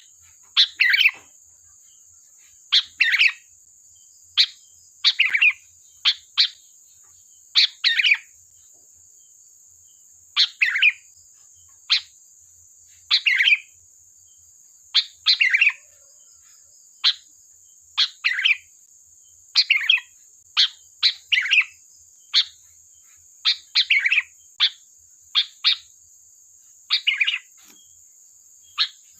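Sooty-headed bulbul (kutilang) calling: short, sharp chattering phrases repeated every second or so, some in quick pairs, over a steady high-pitched hiss.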